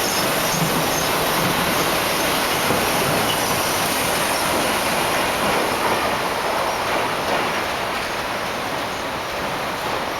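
Wuppertal Schwebebahn suspension-railway train running on its single overhead steel rail, a steady rolling rail noise that grows fainter over the last few seconds as it pulls away.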